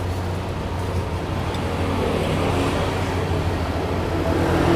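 Motor vehicle engine running with a steady low hum; a higher engine note comes in about two seconds in and grows louder toward the end.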